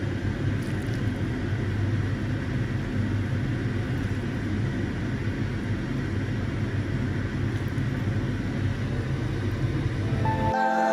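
Steady low mechanical hum with an even rushing noise over it, with no strokes or changes. Soft music with held notes comes in just before the end.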